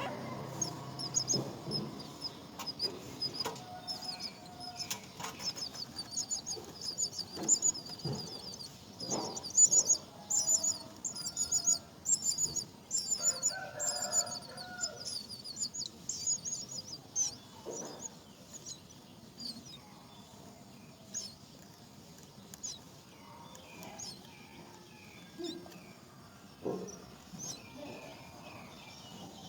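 Nestling birds giving rapid, high-pitched chirps, a dense stream of calls for the first half that thins to scattered chirps in the second half. A few lower calls and short knocks are mixed in.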